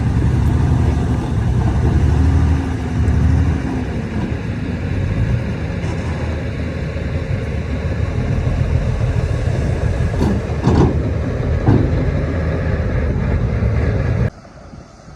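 Heavy diesel earthmoving machinery working: a loud, low engine rumble whose pitch rises and falls in the first few seconds, with a few metallic knocks later on. The sound drops away suddenly near the end.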